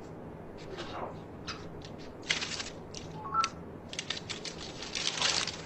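Scattered rustling and clattering noises, with a short rising run of three electronic beeps about three seconds in.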